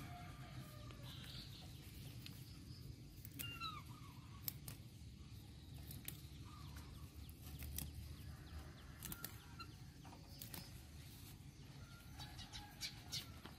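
Chickens clucking faintly in short scattered calls, with sharp snaps and rustles of water spinach stems being picked by hand.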